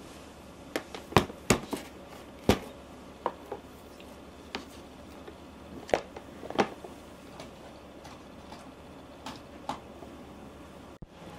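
Scattered sharp clicks and light knocks of a portable IH cooktop and its plug and power cord being set down and handled on a marble tabletop, about a dozen in all, loudest about a second in, at two and a half seconds and around six seconds.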